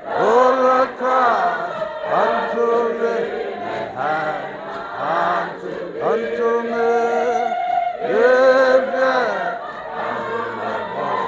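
Mixed group of men and women singing a chant together, in repeated sung phrases about two seconds long, with voices sliding up and down in pitch.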